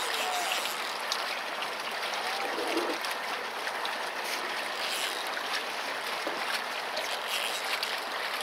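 Steady wash of seawater lapping against a boat's hull.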